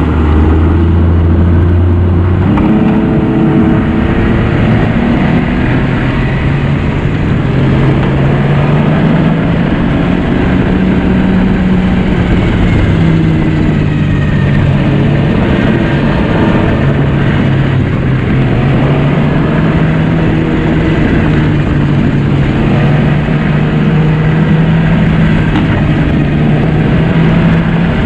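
2009 Yamaha Vector snowmobile's four-stroke three-cylinder engine running under way on the trail, its pitch stepping up about two and a half seconds in and then rising and falling with the throttle.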